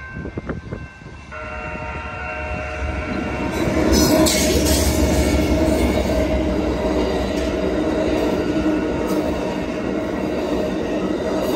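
Amtrak passenger train sounding its horn at a grade crossing, a long blast starting about a second in. The two GE P42DC diesel locomotives pass about four seconds in, followed by the steady rumble and clatter of Superliner cars rolling over the rails.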